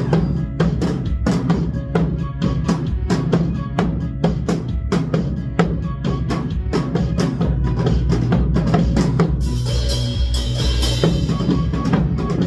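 Korean trot music driven by a dense, regular drum beat, with janggu hourglass drums played in ensemble. A brighter, cymbal-like shimmer comes in about ten seconds in.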